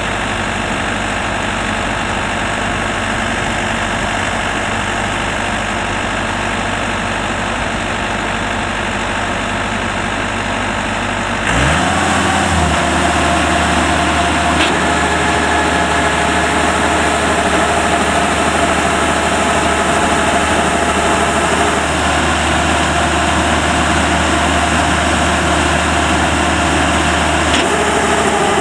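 Yanmar rice combine harvester's engine running steadily, then about eleven seconds in speeding up to a higher, louder running speed with a steady whine over it, held from then on.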